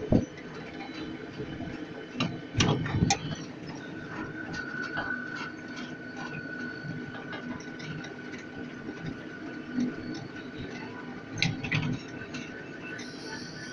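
Onboard running noise of an elevated panorama ride train: a steady rumble with scattered knocks and clicks. From about four seconds in, a thin steady whine runs underneath.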